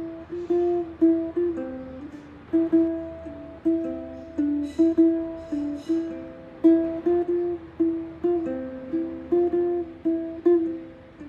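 Background music: a melody of plucked notes on a string instrument, about two to three notes a second, each striking and fading.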